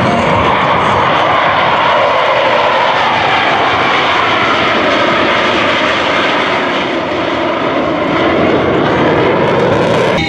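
Jet engine of an F-16 Fighting Falcon flying past at low altitude and climbing away, a loud steady roar whose pitch sinks slowly over the first half.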